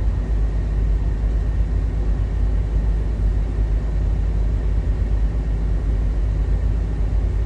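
Steady low rumble of an idling truck engine that powers the countertop Galanz convection oven, with the oven running alongside it.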